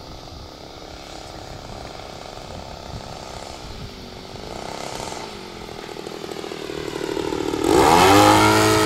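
Propeller-driven radio-controlled aerobatic model airplane flying in, its motor's drone growing steadily louder with the pitch wavering as it manoeuvres. About eight seconds in it makes a close low pass, suddenly much louder, with a sharp drop in pitch as it goes by.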